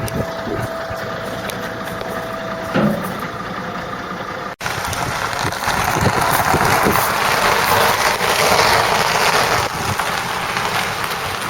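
Truck engine running, with a steady whine over it for the first few seconds. After a cut about four and a half seconds in, a louder rushing noise swells and eases off.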